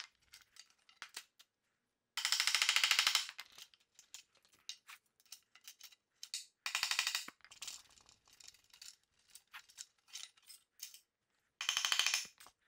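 Quick runs of hammer taps driving a nail through thin metal strapping laid on a wooden board: three runs, each about a second long, a few seconds apart, with light clicks and knocks of the strapping being handled between them.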